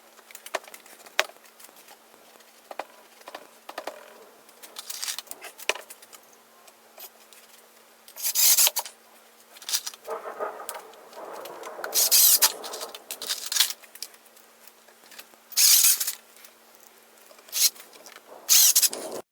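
Woodworking sounds of a pine tabletop being glued up and screwed together: scattered clicks and knocks of boards and tools, with four short, loud, rasping bursts in the second half.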